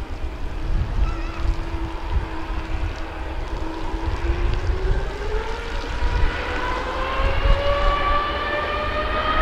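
Jet airliner's turbofan engines spooling up to takeoff power: a steady whine climbs in pitch and grows louder over the second half, over a low rumble.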